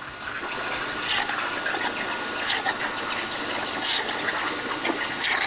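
Unimig Razor Cut 45 plasma cutter on a CNC table cutting 1.6 mm mild steel: a steady rushing hiss of the arc and its air, with scattered crackles.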